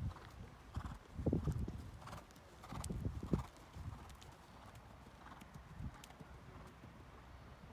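Hoofbeats of a horse trotting on a soft arena surface, loudest in the first few seconds as it passes close, then fainter as it moves away.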